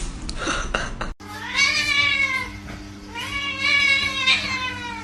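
A cat meowing twice, two long drawn-out calls that rise and then fall in pitch, over a steady low hum.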